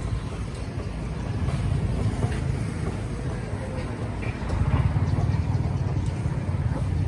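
Roadside traffic noise with a motorbike engine running: a steady low rumble that grows louder about four and a half seconds in.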